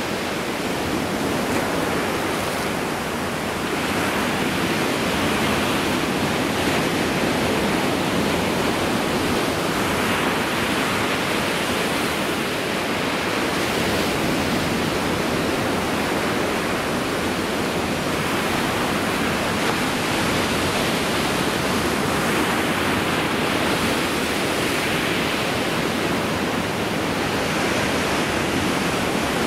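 Ocean surf breaking and washing up the beach: a steady, loud rushing without breaks.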